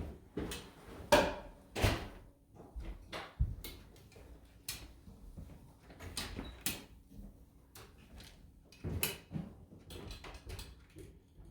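Wet mop being worked over a hard floor: irregular swishes and knocks, the loudest about a second in, near two seconds and around nine seconds.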